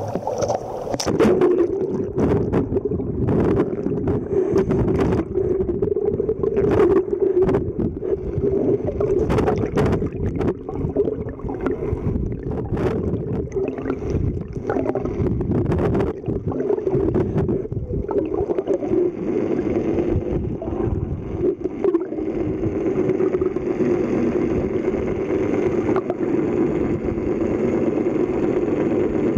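A boat engine's steady drone heard underwater, picked up by a submerged camera, with irregular clicks and knocks through the first half or so.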